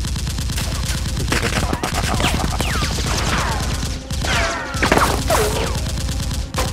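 Sustained rapid automatic gunfire, dubbed-in sound effects standing in for the Nerf blasters. It breaks off briefly about four seconds in, with several whistles falling in pitch laid over the firing.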